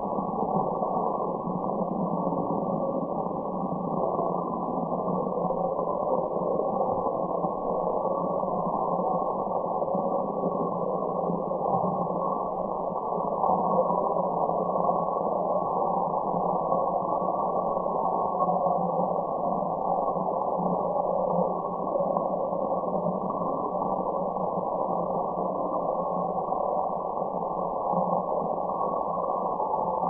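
Steady white-noise track for relaxation: an even, muffled rush with no high hiss, unchanging throughout.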